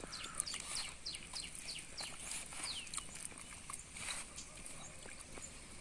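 Small birds chirping: a run of short, high, falling chirps about three a second, thinning out after about three seconds, over a faint steady high hiss.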